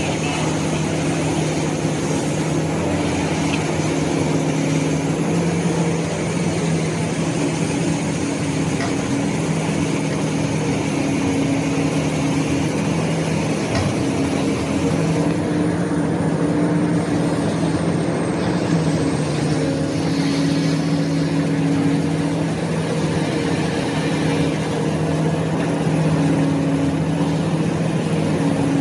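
Heavy diesel coal-handling machinery running steadily: excavator, dozer and crane engines under load, a deep continuous hum whose note shifts a little as they work, with a thin high whine above it.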